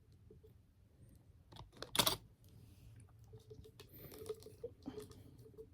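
Small clicks and rubbing of fingers working at a fidget toy, trying to pull off a stuck part, with one louder click about two seconds in.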